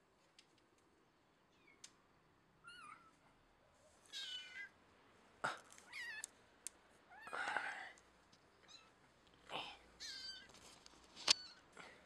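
A kitten mewing over and over: short, high-pitched, wavering mews, about seven of them. A few sharp clicks fall between them, the loudest near the end.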